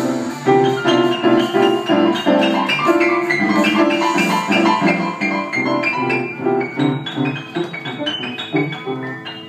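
Upright piano played with both hands in a quick, rhythmic run of notes and chords, getting quieter in the last couple of seconds.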